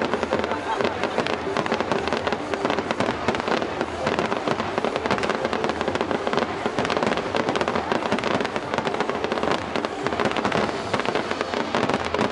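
Fireworks display: aerial shells bursting one after another in a dense, continuous barrage of rapid bangs and crackling.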